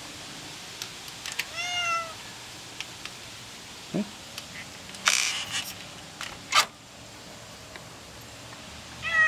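Domestic cat meowing twice: one arched cry about a second and a half in, and another starting right at the end. In between there are a few sharp clicks and a brief rustle.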